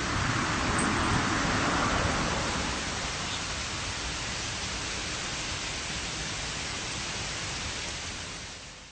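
Steady rushing noise, fading out near the end.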